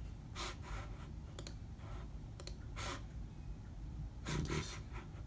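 A few faint, scattered clicks and taps, about six in all, of a device being worked by hand, over a low steady background hum.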